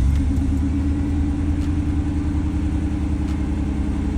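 1989 Chevy Caprice's 305 V8 running steadily just after firing up on a newly fitted starter, a low, even idle.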